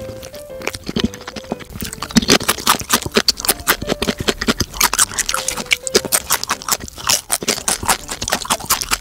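Close-miked crunching and chewing of a crispy-battered, seasoned fried chicken wing: a quick run of crisp crunches that grows denser and louder about two seconds in.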